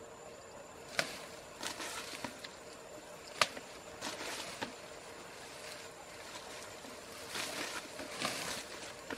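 Tall grass rustling and stalks snapping as an elephant forages in it, with two sharp snaps, about a second and three and a half seconds in, and patches of rustling between them, over a faint steady hum.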